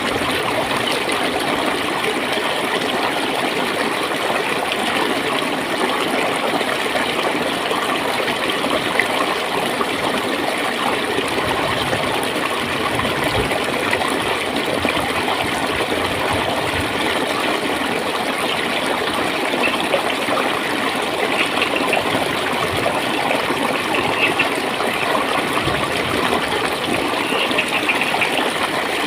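Shallow stream of clear water flowing and gurgling steadily.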